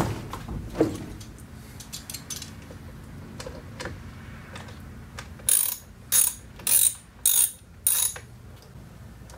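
Hand ratchet clicking as it snugs up the airbag cover bolts behind a steering wheel, in five short bursts about half a second apart in the second half, after a couple of knocks near the start.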